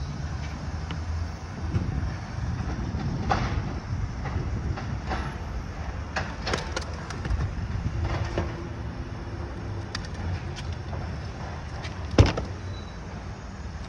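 Garbage truck collecting green carts: its engine runs with a steady low rumble under scattered metallic clanks from the lifting and emptying of the carts. One loud, sharp bang comes near the end.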